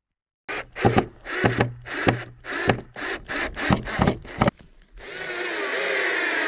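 A quick run of short crunching footsteps on gravel and boards, then a cordless drill-driver runs for about two seconds driving a screw into the deck boards, its pitch sinking slowly as its battery runs flat.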